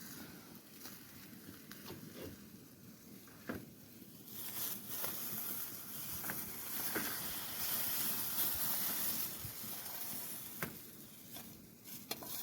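Fish and potatoes sizzling in a hot frying pan, the sizzle swelling about four seconds in and easing off near the end, with a few light knocks scattered through.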